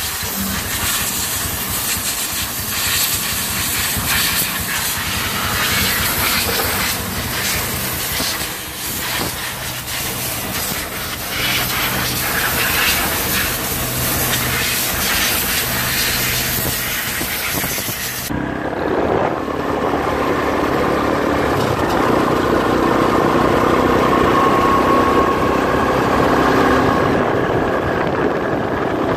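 A pressure-washer wand spraying water onto a quad bike: a loud, steady hiss with a low motor hum underneath. About eighteen seconds in it cuts to the quad bike's engine running steadily on the move, with wind noise on the microphone.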